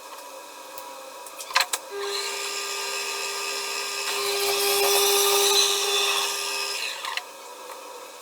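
A small power tool's motor starts about two seconds in and runs with a steady whine. It gets louder through the middle and cuts off about seven seconds in. A few sharp clicks and knocks come before it.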